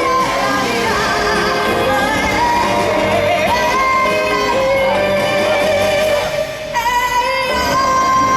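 Yosakoi dance music with a sung melody over instrumental backing, briefly dropping and changing section near the end.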